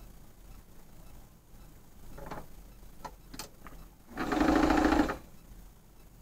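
Domestic electric sewing machine running in one short burst of about a second, after a few light clicks. The stitching stalls because the bobbin thread has run out.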